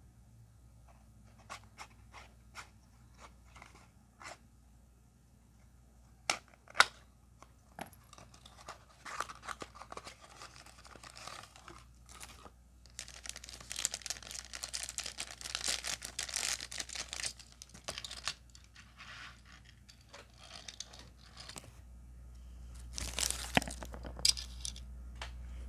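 Plastic blister packaging being worked open by hand to free a small die-cast model car. Scattered clicks and snaps come first, then several seconds of continuous crinkling and tearing of plastic midway, and more crackling near the end.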